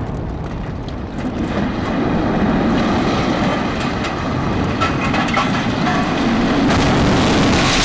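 Demolition of 300-foot concrete power-plant smokestacks: a continuous heavy rumble with cracking as the felled stacks come down and break up, after the blast. The hiss grows stronger near the end.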